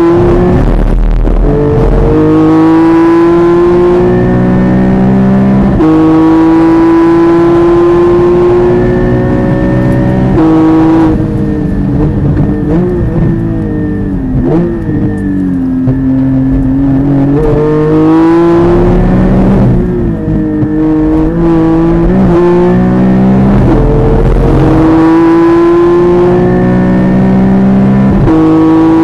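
Porsche sports car's engine heard from inside the cabin at full throttle. It climbs in pitch through the gears, with the note dropping sharply at each upshift, about 2, 6 and 10 seconds in and again near the end. Between about 11 and 18 seconds the note falls and wavers as the car slows for a corner, before it pulls hard again.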